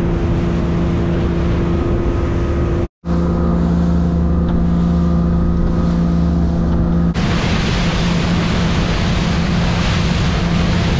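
Motorboat engine running steadily at cruising speed, with the rush of water and wind. The sound cuts out for a moment just before 3 seconds in. From about 7 seconds in, a much louder hiss of churning wake and wind half covers the engine.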